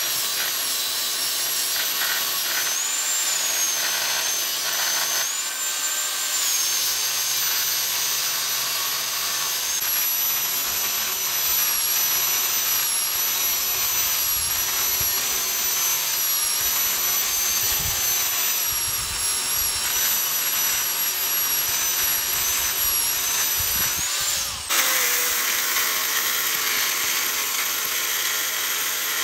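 Angle grinder with a thin abrasive cut-off disc cutting through a steel I-beam flange: a continuous grinding hiss under a high motor whine that jumps up in pitch briefly twice in the first six seconds. About 25 seconds in the sound breaks off abruptly and a second angle grinder carries on the cut.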